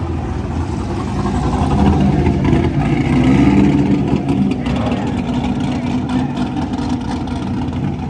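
A car engine running through its exhaust, swelling in level about three seconds in and then easing back.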